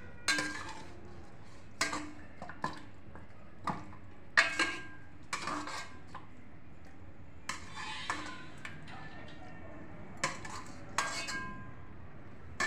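Metal ladle clanking and scraping against stainless-steel pots and a bowl as chicken feet are scooped: about ten irregular sharp clanks, each with a short metallic ring.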